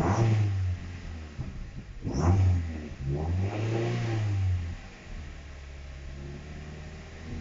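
Mazda MX-5 (NC) four-cylinder engine blipped three times, a short sharp rev near the middle and a longer one after it, then dropping back to idle, an idle the owner calls really rough.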